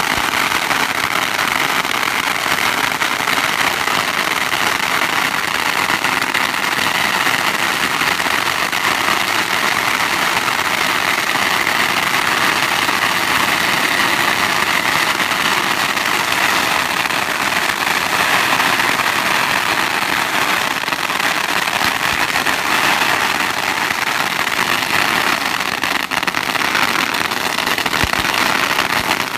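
Long hanging strings of Chinese firecrackers going off, a dense, unbroken rattle of rapid pops that keeps up without a pause.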